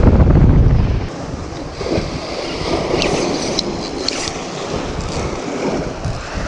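Sea waves surging and breaking on a rocky shoreline, with wind buffeting the microphone in a heavy low rumble during the first second. A few light clicks come near the middle.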